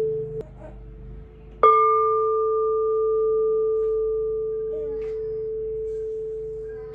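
Metal singing bowl struck once with a padded mallet about one and a half seconds in, ringing on with a steady low hum and a fainter higher overtone that slowly fade. Before the strike, a quieter ring left from the bowl's earlier playing carries on.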